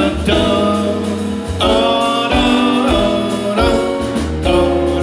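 Live big band playing, with saxophones and brass sounding a run of held chords that change about once a second over a steady bass.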